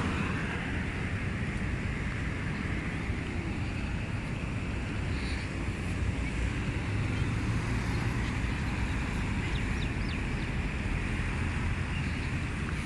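Steady outdoor noise of wind on the microphone mixed with road traffic, a low rumble with no distinct events.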